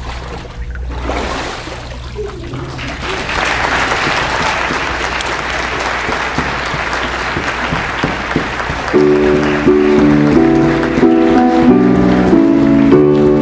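Congregation applauding, the clapping building up over the first few seconds and holding steady. About nine seconds in, piano music begins with slow changing chords over the applause.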